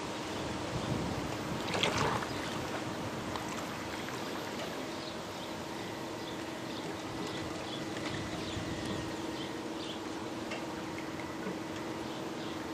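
Radio-controlled scale model boat under way on the water: a steady low hum from its motor over lapping, trickling water, with a brief rush of noise about two seconds in.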